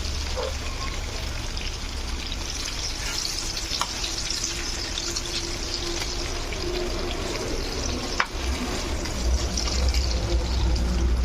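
Chicken pieces deep-frying in hot oil, a steady sizzle full of small crackles and pops, with a sharp click about eight seconds in. A low rumble under the sizzle grows louder near the end.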